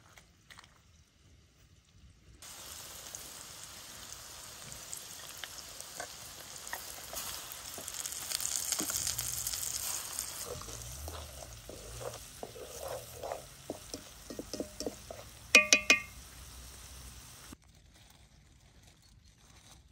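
Sauce of chopped greens sizzling in a metal pot over a charcoal fire as it is stirred, starting a couple of seconds in. A few sharp ringing knocks, the loudest sound, come about three-quarters through.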